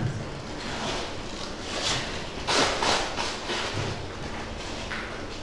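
Pen strokes on an interactive whiteboard while writing: a few short scratchy strokes over a faint room hiss, the strongest cluster about two and a half to three seconds in.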